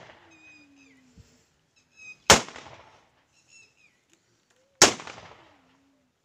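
Two rifle volleys fired into the air by a police guard of honour, about two and a half seconds apart. Each is a single sharp crack with a short echoing tail: a funeral gun salute.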